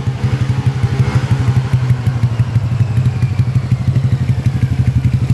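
Honda Vario 150 scooter's single-cylinder engine, bored up with a 59 mm piston, idling steadily through a CLD Racing C3 round slip-on exhaust, giving an even, rapid exhaust pulse.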